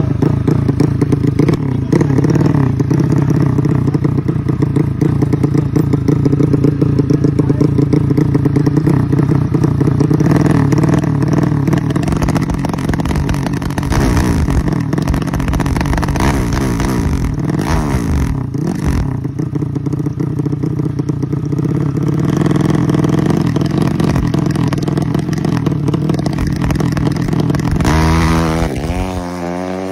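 Bored-up 200cc Honda Supra four-stroke single running through an open racing exhaust, held at a fast idle and revved repeatedly in place during a tuning test. Near the end the revs rise, then fall and the sound fades away.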